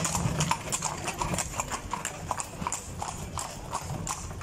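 Hooves of a pair of carriage horses clip-clopping on an asphalt street at an even pace, about three to four hoofbeats a second.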